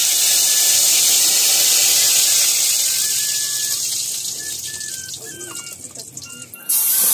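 Wet ground masala paste frying in very hot oil in an iron kadhai: a loud hissing sizzle that slowly dies down, then flares up again suddenly near the end.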